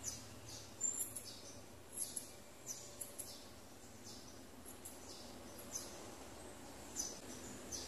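Grooming scissors snipping the fur on a cat's paw: short, crisp snips at irregular intervals, in little clusters of two or three.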